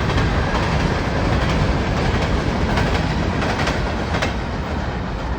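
A passing freight train, its cars rolling over the rails with a steady rumble and a clickety-clack of wheels on rail joints, easing a little near the end.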